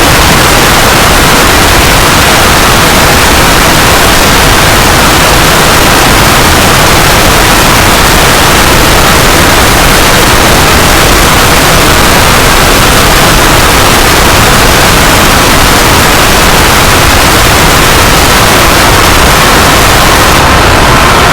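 Loud, harsh static noise, steady and unbroken throughout.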